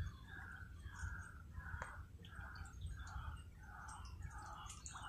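A bird calling over and over, faintly: a short note repeated about every two-thirds of a second.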